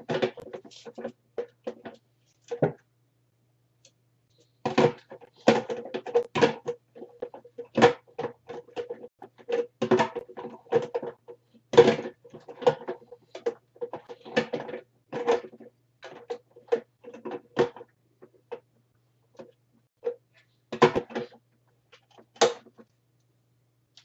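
Plastic blender pitchers, lids and motor bases being handled and set down: irregular clusters of knocks and clicks, with two short pauses, one a few seconds in and one near the end.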